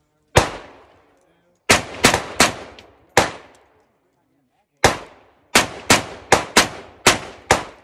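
Gunshots: about a dozen sharp reports at an uneven pace, some single and some in quick strings of three to six, each trailing off briefly.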